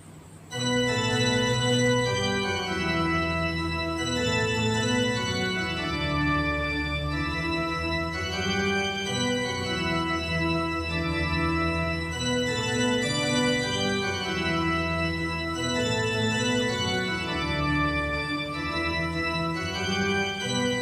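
Background music: a keyboard piece of held chords that change about once a second, starting about half a second in.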